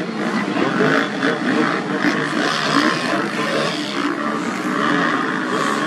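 Several motocross bikes racing together, their engines revving up and down over one another in a continuous wavering drone.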